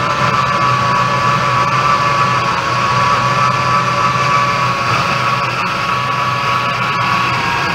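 2006 Ford Expedition's V8 engine idling steadily, with a steady whine in the upper range that wavers slightly in pitch.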